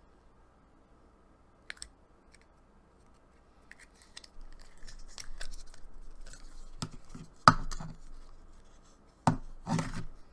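Clear slime being handled: stretched, squeezed and poked, giving sticky crackling and clicking from about four seconds in, with a sharp pop about halfway through and two more near the end.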